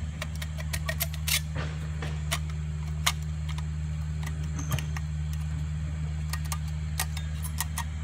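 Irregular sharp clicks and taps from a microwave magnetron and its parts being handled, over a steady low hum.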